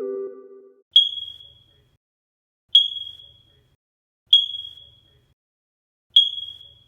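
A short electronic tone that steps up in pitch ends within the first second. Then a high electronic ding sounds four times, each fading away quickly, about every one and a half to two seconds.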